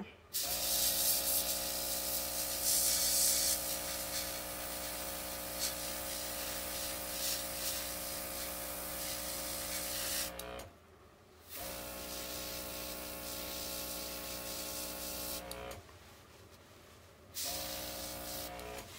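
OPAWZ airbrush spraying temporary pet ink with a steady hiss, over the even hum of its small compressor. It runs in three stretches, cutting out for about a second near the middle and for a little over a second toward the end.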